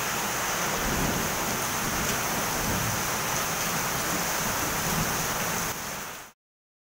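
Heavy rain pouring onto a flooded street, a steady hiss of water, which cuts off abruptly about six seconds in.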